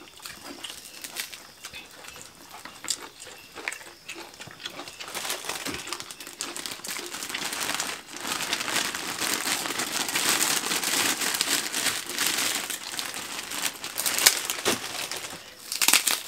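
Plastic bag crinkling as a stack of crackers (kerupuk) is pulled out of it, loudest in the middle, with scattered sharp clicks before and after.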